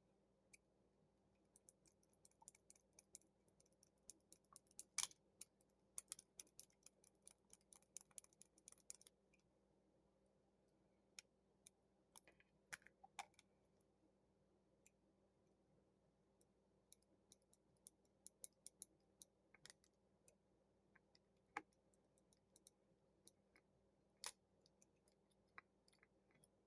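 Faint, scattered clicks and taps of a plastic Transformers action figure's joints and parts being handled and moved through its transformation, in irregular clusters with short pauses.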